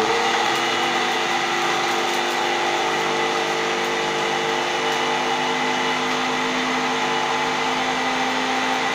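Electric spice grinder running steadily at high speed with a whine, grinding a dry mix of spices into powder; it is switched off at the very end and starts to wind down.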